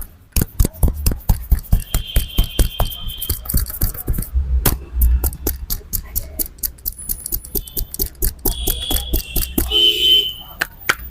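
Rapid hand slaps and taps of a barber's head massage, several sharp strikes a second. Brief high-pitched tones sound in the background twice.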